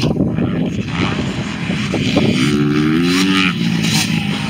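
Motocross dirt bike engine revving, its pitch climbing and dropping with the throttle and gear changes.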